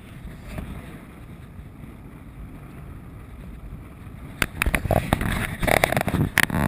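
Low, steady rumble of wind and water on a small boat at sea. About four and a half seconds in, loud irregular knocks and bangs break in over it.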